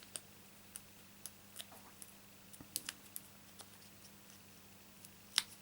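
Faint, irregular small clicks and ticks of fingers handling card stock and foam adhesive dimensionals on a craft table, with one sharper click near the end. A steady low electrical hum runs underneath.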